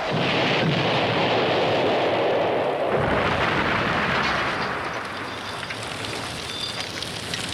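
Loud rushing noise with no clear pitch, easing a little after about five seconds.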